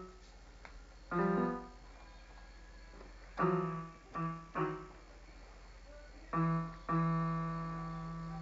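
A baby's palms slapping the keys of an electronic keyboard, each slap sounding a cluster of piano-voiced notes at once. There are about six irregular slaps, and the last is held and rings on.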